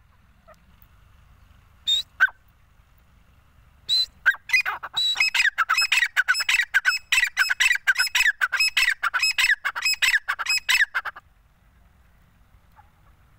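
Grey francolin calling: two short calls about two seconds in, then from about four seconds a loud, rapid run of repeated high, falling notes that goes on for about seven seconds and stops abruptly.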